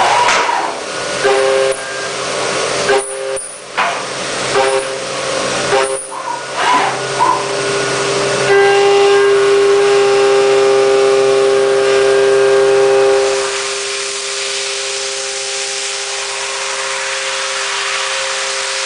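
Deckel Maho CNC milling machine running a high-speed milling job: a whining spindle with several steady tones over a high hiss. It stops and restarts several times in the first half, then runs steadily and louder before dropping in level about two-thirds of the way through.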